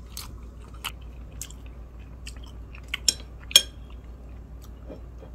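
A person chewing a mouthful of fried rice, close to the microphone, with scattered small mouth clicks and smacks; two sharper clicks come a little after three seconds and about three and a half seconds in.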